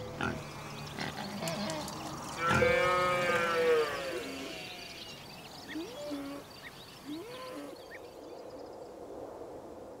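Farm animal calls: one long call about two and a half seconds in, the loudest sound, then two short calls around six and seven and a half seconds.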